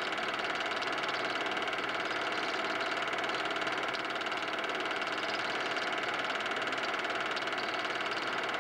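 Steady whirr and hum of a film projector running as it plays back a Super 8 film.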